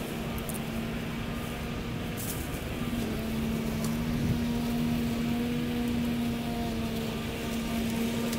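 Battery-powered Ego push mower running across grass: a steady electric motor hum that drops out briefly near the start and again about three seconds in, then carries on.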